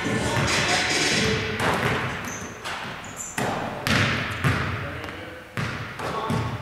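A basketball bouncing on a hardwood gym floor: several separate thuds at uneven spacing, each echoing in the large hall.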